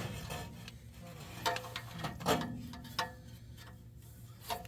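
A few scattered light metallic clicks and clinks from hand tools and clamp hardware being worked on an exhaust pipe.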